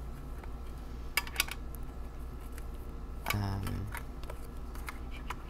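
Small metal tarot-deck tin being handled and opened: a few sharp clicks and taps, two close together about a second in and more near the end, with a brief pitched sound about three and a half seconds in.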